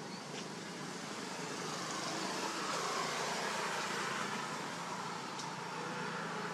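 Road-vehicle noise that swells to its loudest a few seconds in and then eases, like a car or motorbike passing, over a steady low hum.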